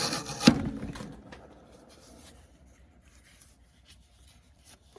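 Thick bridle-leather strap pulled past a skiving blade: a short rasping scrape as the blade shaves the back, ending in one sharp knock about half a second in. Afterwards only a few faint small handling ticks.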